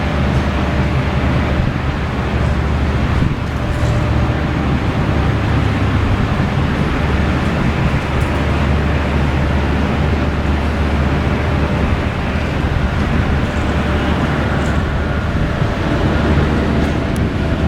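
Steady, loud rumble of aircraft engines, holding level without rising or falling.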